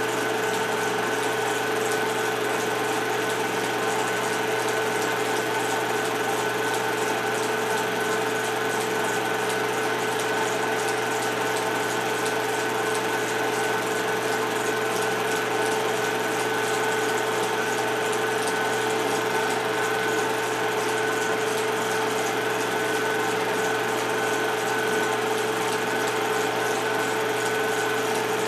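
Film projector running with a steady mechanical whir and a constant hum.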